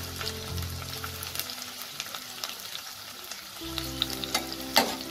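Sliced red onions sizzling and crackling in hot vegetable oil in a deep pan, just after going in to fry, with a sharper crack near the end.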